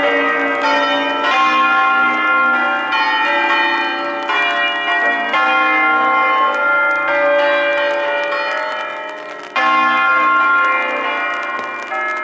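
A full peal of eight church bells in B-flat, cast by Pruneri in 1911 with two recast by Cavadini in 1954, all swinging full circle together. Their overlapping clangs ring on and on, growing louder suddenly with fresh strikes about nine and a half seconds in.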